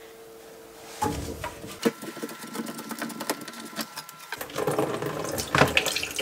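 Hands working plastic waste fittings under a kitchen sink: a rapid run of small clicks and rattles as the washing machine's drain hose connection is loosened and pulled off. The handling grows louder about four seconds in.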